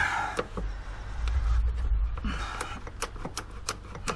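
Light metallic clicks and taps from hands working the parts of a motorcycle's footpeg bracket, with a low rumble for about two seconds in the middle.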